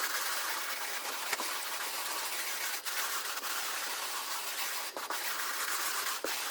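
A brush scrubbing sand into a carpet: a continuous scratchy rasp of bristles and grit, with a few sharp ticks.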